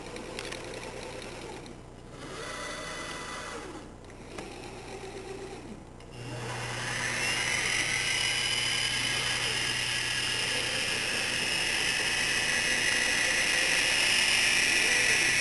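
CNC router moving in three short whirring runs of its motors. About six seconds in, its spindle spins up with a rising whine and then settles into a steady high-pitched whine at speed.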